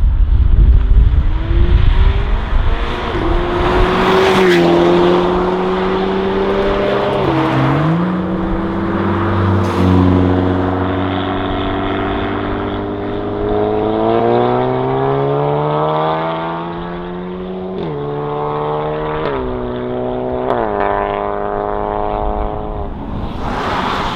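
Sports car engine accelerating hard through the gears, revs climbing and dropping sharply at each upshift, with three quick upshifts in a row near the end as it fades into the distance.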